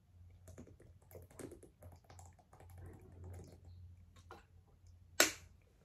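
Drinking from a plastic water bottle: faint swallowing and the thin plastic crackling in many small irregular clicks, with one louder sharp click about five seconds in.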